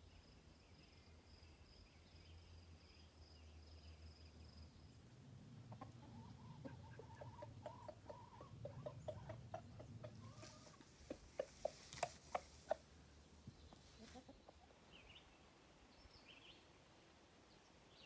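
A chicken clucking in a quick run of short calls, then a handful of louder sharp calls about two-thirds of the way in. Faint songbird chirps come near the end.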